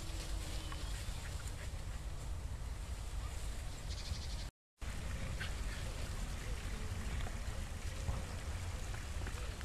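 Wind buffeting the microphone as a steady low rumble, with faint short yips and whines from Siberian husky puppies at play. The sound drops out briefly near the middle.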